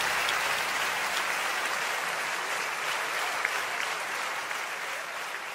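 Audience applauding, a dense patter of many hands clapping that slowly fades away.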